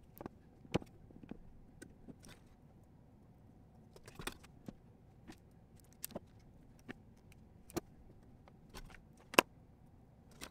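Small wiring parts and tools being handled on a workbench: scattered light clicks and taps, a brief rustle about four seconds in, and one sharper knock about nine seconds in.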